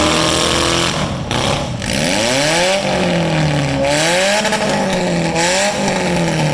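Demolition derby cars' four-cylinder engines revving, the pitch repeatedly rising and falling as the throttle is worked, with loud bursts of noisy roar breaking in and out.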